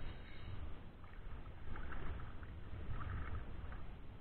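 Water splashing and sloshing as a hooked largemouth bass thrashes at the surface close in, over a low steady rumble, with a few louder splashes about two and three seconds in.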